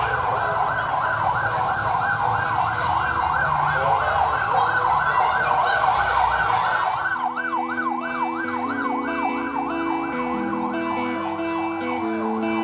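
Electronic siren of a convoy escort car wailing in a fast yelp, sweeping up and down about three times a second, over traffic rumble. About halfway the rumble drops away and steady music tones come in under the siren, which sweeps a little slower.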